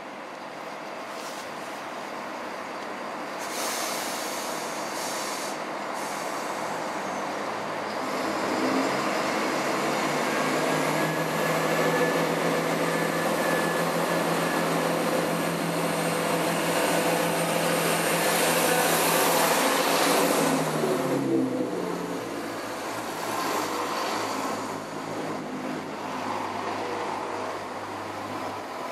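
Chiltern Railways Class 168 Clubman diesel multiple unit pulling away from the platform and passing close by, its underfloor diesel engines building to a loud, steady hum. About two-thirds of the way through the engine note drops and runs on at a lower pitch.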